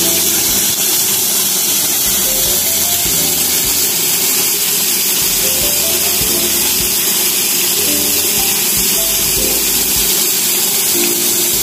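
Steady hiss of water pouring down a small man-made waterfall, with music playing a stepping melody over it.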